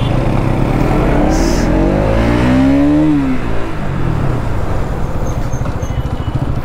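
Bajaj Pulsar NS200 motorcycle engine accelerating over a steady low rumble: its pitch climbs for about two seconds, then drops sharply about three seconds in.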